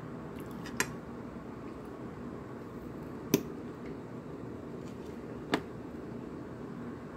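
A fork clinking against a ceramic dinner plate three times, short sharp clinks with the middle one loudest, over a steady low background hum.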